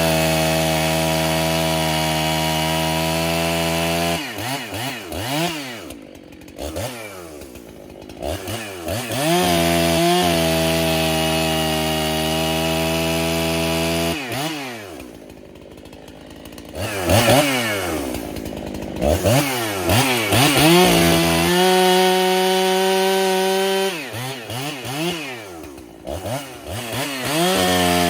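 Two-stroke Husqvarna 371 chainsaw, freshly rebuilt with a base gasket delete and a stock muffler, cutting firewood. It is held at full throttle for several seconds at a time, and between cuts drops to idle with quick revs up and down.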